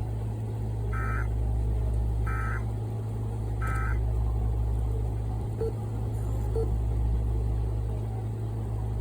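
Three short bursts of Emergency Alert System SAME data tones, the end-of-message code, each a fraction of a second long and about a second and a half apart. Under them is a steady low rumble.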